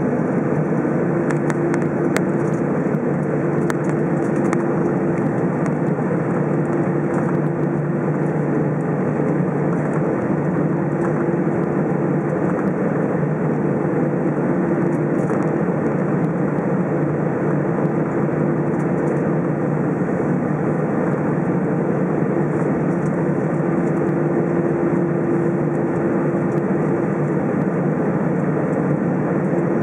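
Steady cabin noise inside an Airbus A321 on the ground, its jet engines running at low thrust, with a steady hum under an even rush of air.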